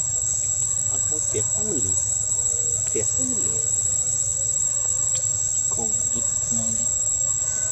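A steady, high-pitched insect chorus drones without a break, with a softer chirp pulsing about every three-quarters of a second.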